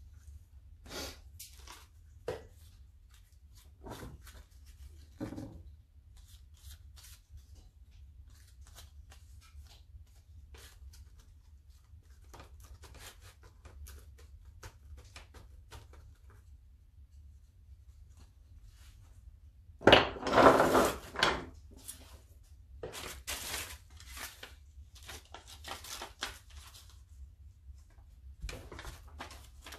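Paper and craft materials being handled: scattered light rustles, clicks and small knocks, with one louder rustling, tearing-like burst lasting about a second and a half about two-thirds of the way in.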